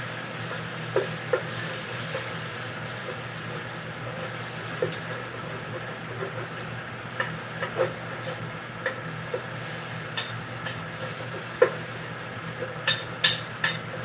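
Onions, bell peppers and garlic sizzling in a pan while being stirred, the utensil knocking against the pan now and then, with a quick run of sharper clicks near the end.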